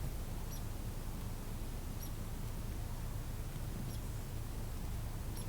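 Quiet background with a steady low rumble and four faint, short high-pitched chirps about a second and a half apart.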